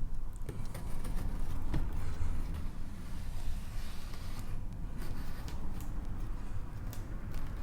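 A cardboard model-kit box being opened and its contents handled: rustling, with scattered light knocks and clicks over a low steady rumble.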